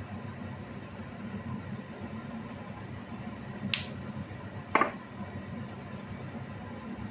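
Two sharp clicks about a second apart near the middle, from a container and utensils being handled at a stove, over a steady low hum.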